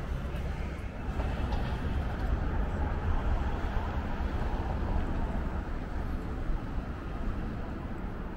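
Steady city street noise, mostly the low rumble of road traffic.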